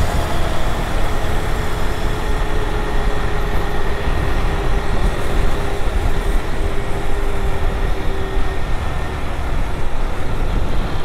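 Steady wind and road noise of a motorcycle being ridden, picked up by a helmet-mounted motovlog microphone, with the bike's engine running underneath.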